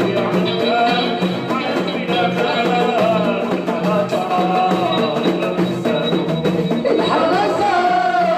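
Live band music with drums and percussion keeping a steady beat under a wavering melodic line.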